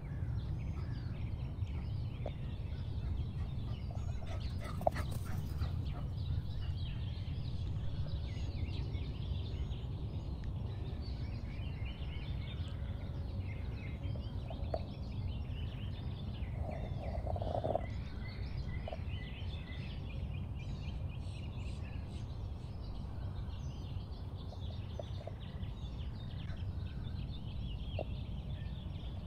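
Birds chirping over a steady low rumble, with a few faint light knocks.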